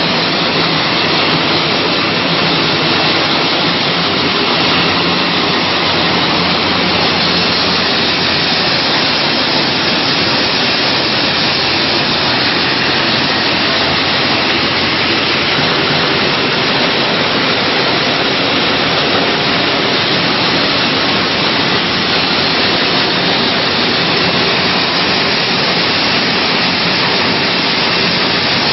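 Steady, even machine noise of a hall full of horizontal flow-wrapping packing machines running, with no distinct rhythm standing out.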